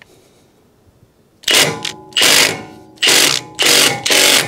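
Milwaukee Fuel cordless impact wrench run in reverse in five short bursts, starting about a second and a half in. It is hammering a locking-nut remover socket against a wheel's locking nut to break the nut loose.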